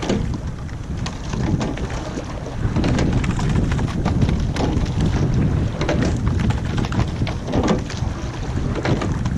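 Wind buffeting the microphone aboard a rowing eight under way, with a steady low rumble and scattered knocks from the oars and oarlocks as the crew rows.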